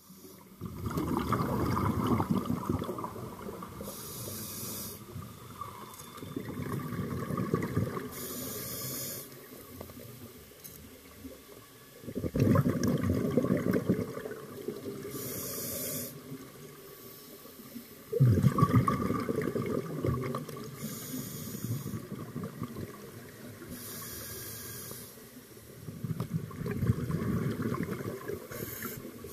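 Scuba diver breathing through a regulator underwater. Each breath is a short high hiss on the inhale, followed by a louder bubbling rumble on the exhale, repeating about every five to six seconds.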